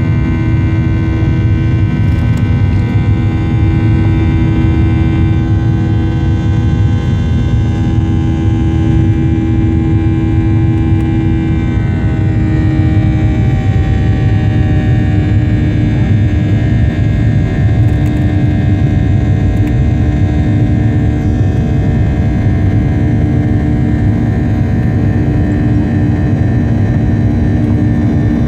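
Boeing 737's CFM56 jet engines running at high power, a loud steady roar with several whining tones over it that slide down in pitch about halfway through and then hold steady.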